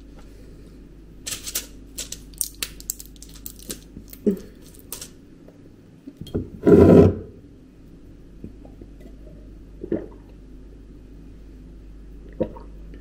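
Pill packets and bottles being handled: a run of sharp clicks and light knocks over the first few seconds, then one louder rushing noise lasting under a second about seven seconds in, and a few faint clicks later.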